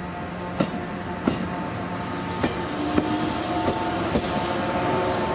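JNR 415 series 1500 electric multiple unit moving along the platform, its traction motors whining with one tone rising slightly in pitch as it picks up speed, and the wheels clicking sharply over rail joints every second or so. The sound grows steadily louder.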